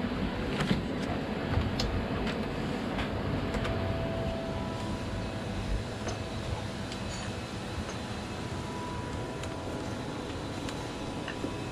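Steady low machinery hum, with light clicks and taps of a screwdriver working on the plastic housing of a toilet macerator pump, most of them in the first few seconds.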